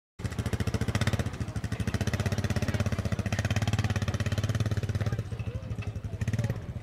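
An engine idling with a fast, even pulsing beat; it eases off a little about five seconds in.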